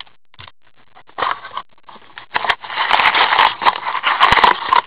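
Cardboard trading-card box being opened and its wrapped card packs pulled out, crinkling and scraping. The sound is scattered at first, then dense and loud from about halfway in.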